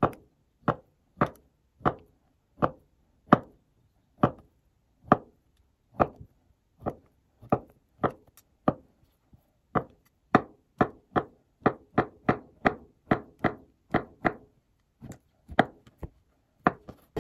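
Kitchen knife slicing a peeled avocado on a cutting board, about thirty separate knocks of the blade on the board, at first under two a second and quicker in the second half.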